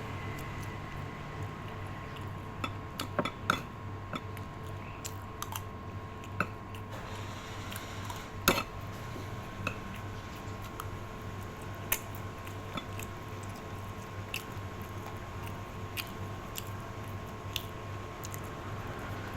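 Scattered light clicks and taps over a steady low hum, with sharper knocks about three and a half and eight and a half seconds in.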